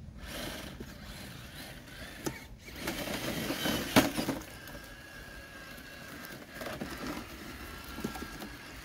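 Traxxas TRX-4 RC crawler driving over the woodland floor: a faint electric motor whine with crackling of twigs and leaves, the loudest crack about four seconds in.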